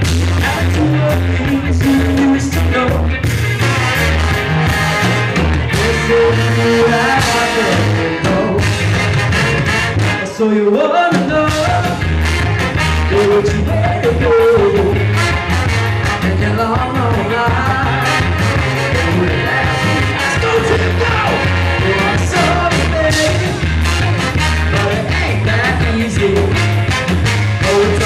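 A live ska band playing: saxophone, trombone and trumpet horn lines over electric guitar, bass and drums. The band stops for a moment about ten seconds in, then comes back in.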